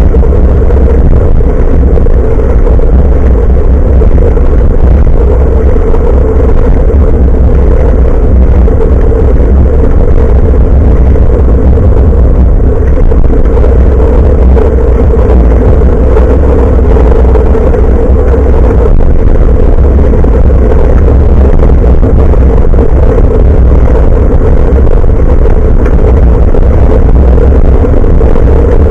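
Loud, steady wind and road rumble on a handlebar-mounted action camera's built-in microphone while cycling, with a steady mid-pitched hum underneath.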